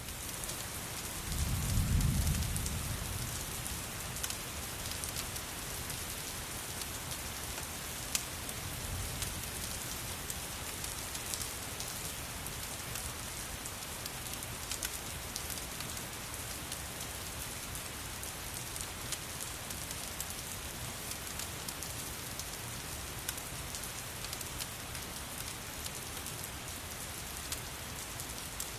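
Steady rain falling, with a low rumble of thunder about two seconds in and occasional sharp ticks.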